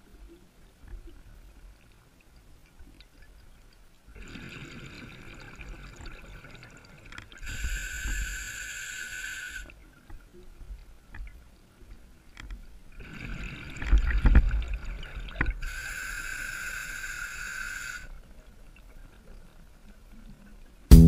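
Scuba diver breathing through a regulator underwater: twice, a gurgle of exhaled bubbles is followed by the steady hiss of an inhale through the regulator, with quiet pauses between the breaths.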